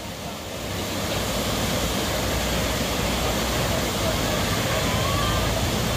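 Whitewater rapids on a high river: a steady, even rush of water pouring over rocks.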